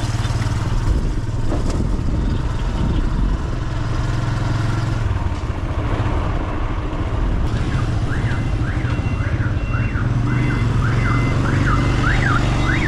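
Motorbike engine running steadily under way, heard from the pillion seat with wind noise. About eight seconds in, a repeating up-and-down warbling electronic tone, like an alarm or siren, joins it, about one or two sweeps a second.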